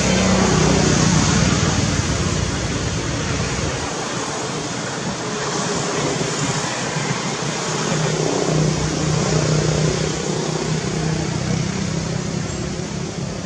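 Steady rushing noise with a low motor hum, like road traffic, swelling at the start and again about eight to ten seconds in.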